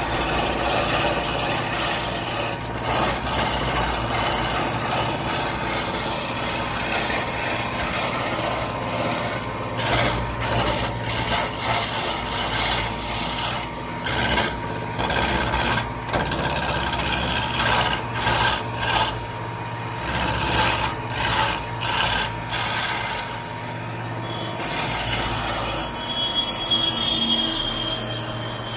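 Wood lathe turning a long wooden spindle while a hand-held turning chisel cuts it: a continuous rasping, shaving noise over a steady low hum, with sharper short cuts coming and going through the middle.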